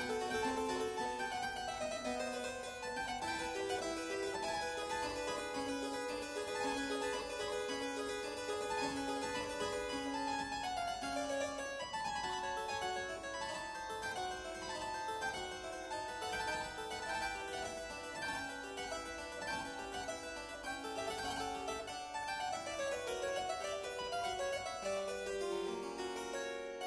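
Instrumental background music: a steady stream of quick, even notes running up and down.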